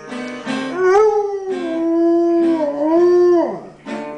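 Bluetick coonhound howling: one long howl that starts about a second in, holds a fairly steady pitch with a dip in the middle, then slides down and breaks off, followed by a short second cry near the end.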